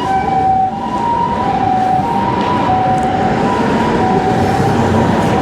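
Ambulance two-tone siren alternating between a high and a low note, each held under a second, over busy city street traffic noise.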